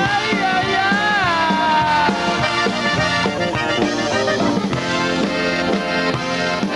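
Live Tejano band playing an instrumental break between verses: accordion and horn section over bass and drums, with long sliding melody notes in the first two seconds.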